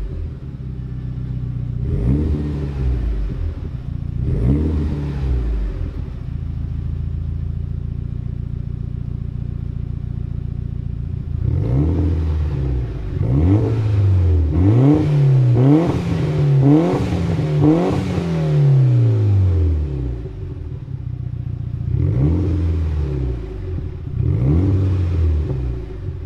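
Mitsubishi Lancer Evolution IX's turbocharged 4G63 inline-four engine revved through an ETS catback exhaust on the stock catalytic converter and downpipe. It gives two short blips, settles to idle for a few seconds, then a quick run of about six blips in a row, idles again and gives two more blips near the end.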